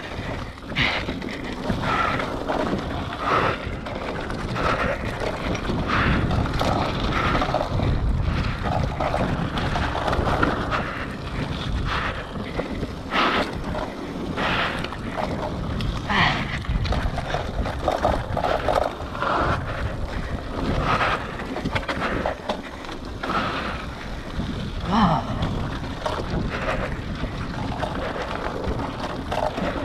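Hardtail mountain bike rolling fast down a dirt trail: a steady rush of tyre and trail noise, with frequent knocks and rattles as the bike goes over bumps, and wind buffeting the microphone.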